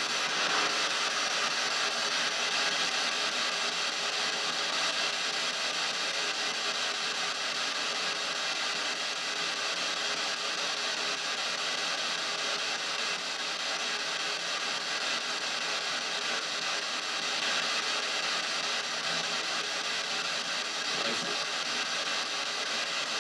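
P-SB7 spirit box sweeping through radio frequencies, played through small stereo speakers: a steady hiss of radio static.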